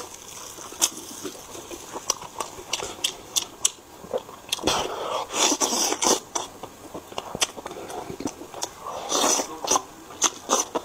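Close-miked chewing and biting as meat is pulled off a bone with the teeth, with many sharp mouth clicks and smacks.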